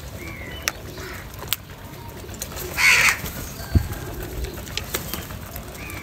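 House crows at a grain bowl: one loud, harsh caw about halfway through. A few sharp taps come from beaks pecking at the clay bowl, and there are faint short bird calls.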